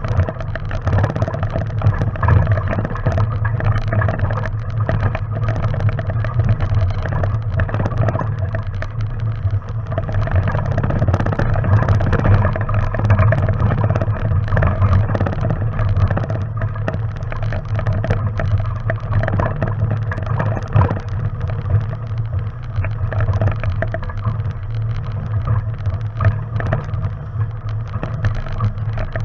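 Off-road vehicle engine running steadily at low revs while crawling over a rocky trail, with frequent knocks and rattles from the rough ground.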